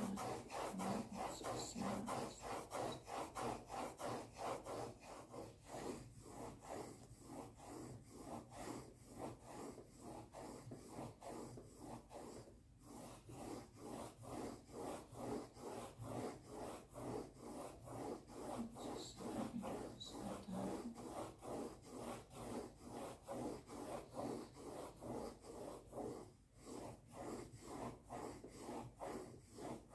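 Coloured pencil scratching across drawing paper in quick, even back-and-forth strokes, about three a second.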